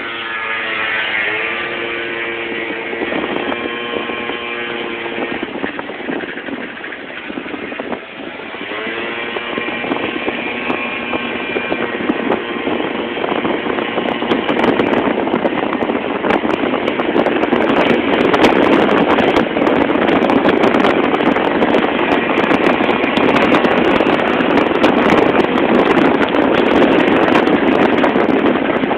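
Moped engine pulling away and accelerating, its pitch climbing, dipping briefly about eight seconds in, then climbing again. From about halfway through, a growing rush of wind on the microphone covers the engine as the moped gathers speed.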